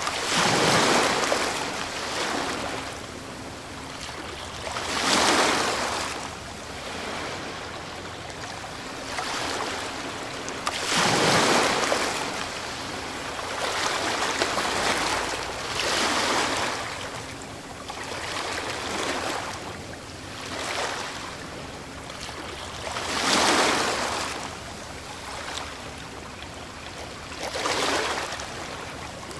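Ocean waves breaking on a shore one after another. About six surges of surf come every four to six seconds, each swelling to a rush and washing back down.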